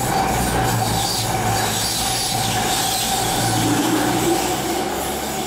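CrossCountry Voyager diesel multiple unit passing directly beneath, its wheels screeching on the rails with a steady high squeal over the rumble of its running gear and underfloor engines.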